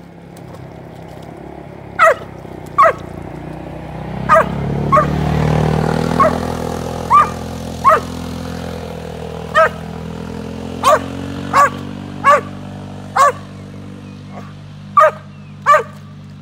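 Appenzeller Sennenhund barking: about fifteen short, sharp barks at irregular intervals, starting about two seconds in, each dropping slightly in pitch.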